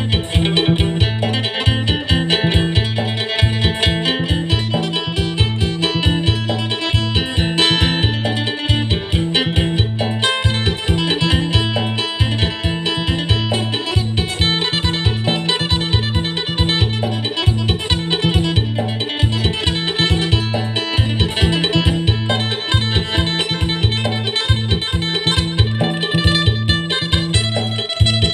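Acoustic phin, the Isan three-string plucked lute, playing a fast, bright sing-style melody over a steady low beat.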